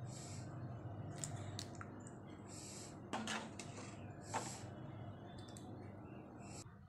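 Matar paneer curry being ladled with a steel spoon into a ceramic bowl: soft wet squishing of the gravy and a few light clicks of the spoon against the bowl, over a low steady hum.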